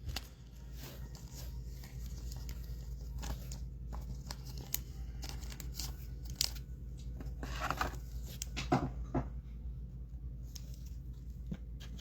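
Trading-card pack wrappers and cards being handled: scattered light crinkles, rustles and short taps.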